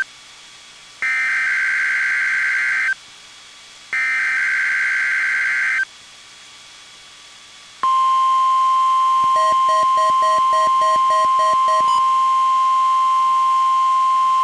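NOAA Weather Radio Required Weekly Test heard through a weather radio receiver: two SAME digital header bursts, each a warbling data screech about two seconds long with about a second's gap between. About eight seconds in, the steady single-pitch 1050 Hz tone alert begins and holds. A faint rapid pulsing buzz rides over the tone for a couple of seconds near the middle.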